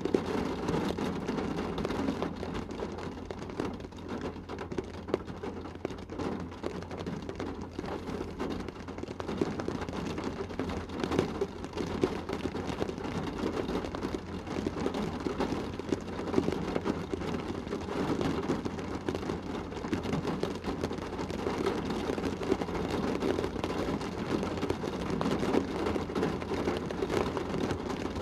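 Heavy shower rain pattering steadily on a car's roof and windows, heard from inside the car: a dense, even spatter of drops.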